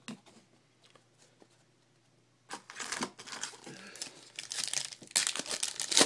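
Foil wrapper of a 2012 Panini Prestige football card pack crinkling as it is handled and torn open. The crinkling starts about two and a half seconds in, and the loudest tearing comes near the end.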